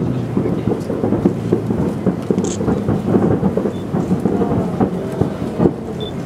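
Distant aerial fireworks bursting in quick succession over a harbour: a continuous low rumble of many overlapping booms and crackles.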